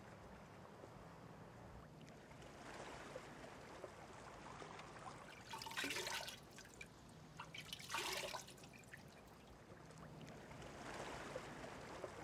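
Hands scooping shallow seawater and splashing it over a face: two loud splashes about six and eight seconds in, with trickling and dripping water between and around them.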